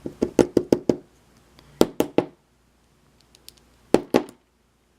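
Sharp small knocks and clicks from handling a lock while it is being taken apart. A quick run of about six taps comes first, then three more about two seconds in, and two more near four seconds.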